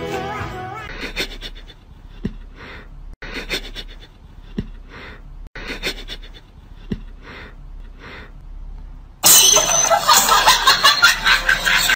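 A cat sniffing at a socked foot in short, breathy puffs about once a second, then a loud, rough outburst for the last few seconds.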